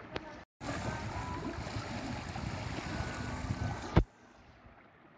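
Wind on the microphone and water rushing and splashing alongside a small boat at sea. The sound breaks off with a sharp click about four seconds in, leaving only a faint hiss.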